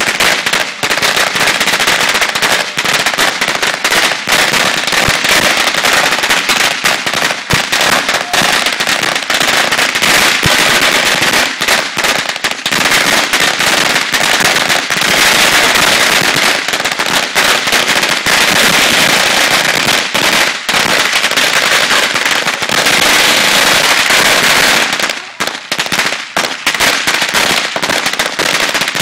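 Fireworks going off on the ground in a dense, unbroken stream of rapid cracks and pops, with a short thinning about 25 seconds in.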